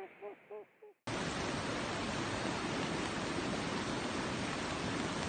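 Background music fades out, then about a second in a mountain stream's rushing water cuts in abruptly and runs on as a steady, even rush.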